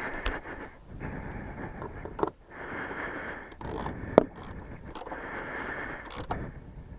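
Hand work inside a motorcycle air box: repeated rubbing and scraping strokes, each a second or two long with short pauses between, and a few sharp clicks, the sharpest about four seconds in, as the box is wiped and tidied.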